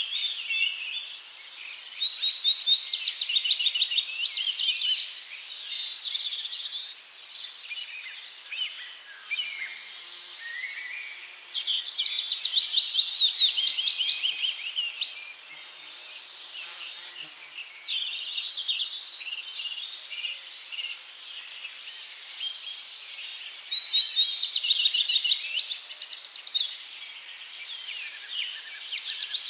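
Songbirds singing, with three loud stretches of fast, rapidly repeated high notes about ten seconds apart and quieter chirping in between.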